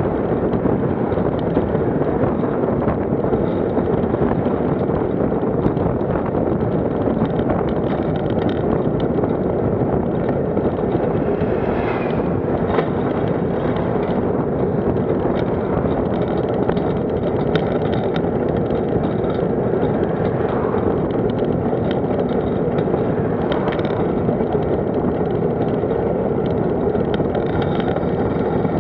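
Steady wind noise on the microphone and road noise from travelling along a road, with cars passing the other way. A faint rising whine sounds briefly about twelve seconds in.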